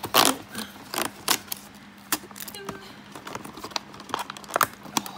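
Cardboard advent calendar door being opened and a plastic-wrapped tube pulled out: irregular crinkling, rustling and clicking of card and plastic packaging, sharpest just after the start, over a faint steady hum.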